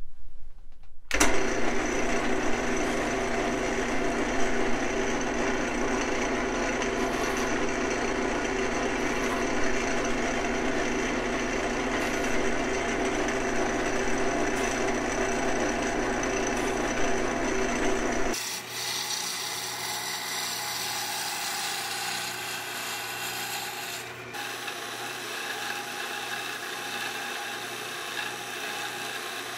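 Wood lathe starting up about a second in and running steadily with the turned oak stretcher blank spinning. About two-thirds of the way through the sound changes to a softer, steady rasping: a parting tool cutting into the spinning oak to set the tenons to depth.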